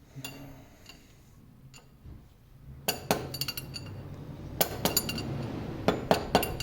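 Hammer tapping a soft punch against a lathe headstock's castle nut to knock it loose, a handful of sharp metallic clinks with a short ring, mostly in the second half.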